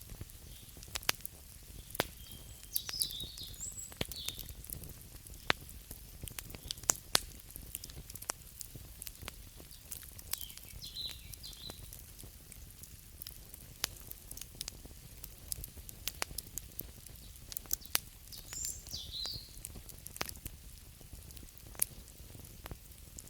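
Wood fire crackling, with frequent sharp pops and snaps of varying strength over a low steady hiss. Three brief high chirps come about eight seconds apart.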